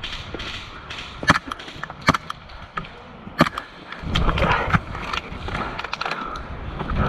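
Airsoft fire: three loud, sharp cracks roughly a second apart, then from about four seconds in a run of quicker, fainter clicks over a low rumble of handling or wind noise on the microphone.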